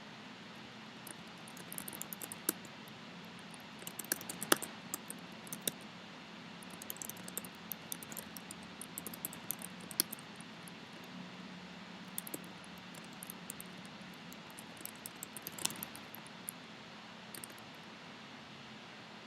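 Typing on a computer keyboard: irregular bursts of key clicks with short pauses between them, thinning out near the end, over a steady low hum.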